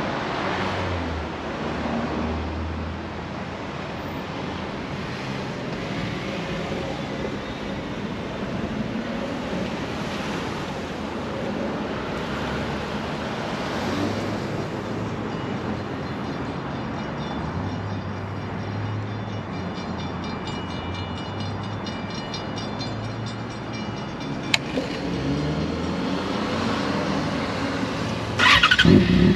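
Steady background rumble, with a single click a few seconds before the end. Near the end the 2009 Yamaha FZ6R's fuel-injected inline-four is started, with a brief rising whir, and catches into a loud, steady run through its Two Brothers slip-on exhaust.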